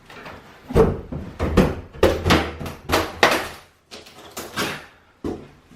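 Irregular series of knocks and bangs, about ten in all, as old kitchen backsplash is pried and pulled off the wall.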